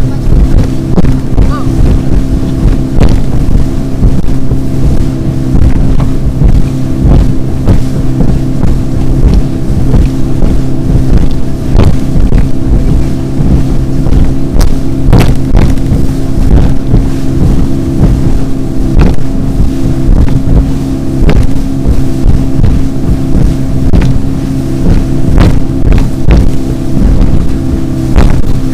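Small motorboat running fast over choppy sea: a steady, loud engine drone, with wind on the microphone and frequent sharp slaps of waves and spray against the hull.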